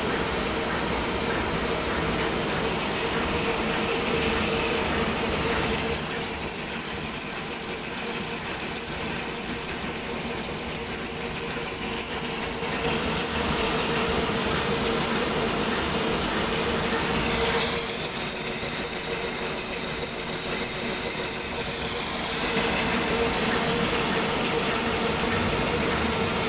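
Henyue turret-rewind label slitting machine running: a steady mechanical hum with a constant tone. The label web feeds through the slitting knives and winds onto the rewind rolls.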